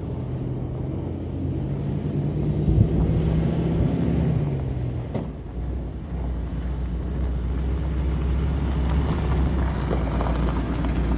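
1992 Ford F350 pickup's engine as the truck drives up: its pitch climbs, then drops about five seconds in, and a deeper steady rumble follows as the truck comes close.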